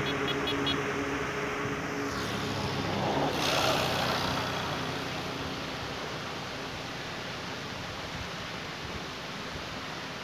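A motor vehicle engine running, fading away about two seconds in, then a steady even rush of noise.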